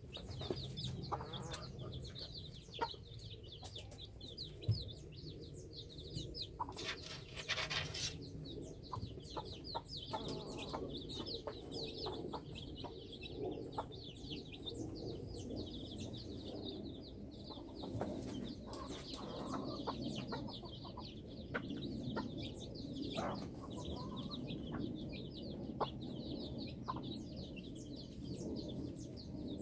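A brood of young Cheonggye chicks peeping continuously in rapid, high, falling cheeps, with the mother hen clucking low as she forages among them. A brief harsher sound stands out about seven seconds in.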